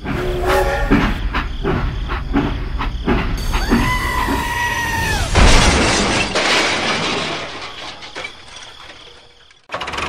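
Dubbed train sound effects: a rhythmic clatter of wheels over rail joints, then a horn blast of about a second and a half, then a loud crash with a noisy rattle that dies away over several seconds before cutting off abruptly.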